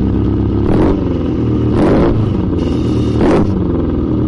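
Hyundai i20 on the move: engine and road noise with a low 'oooo' humming from a failing front wheel bearing, swelling and easing about three times. The left front bearing is completely gone and the right one is weak.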